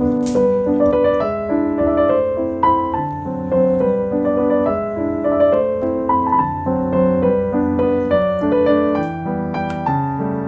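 Background piano music: a calm melody of single notes over held chords.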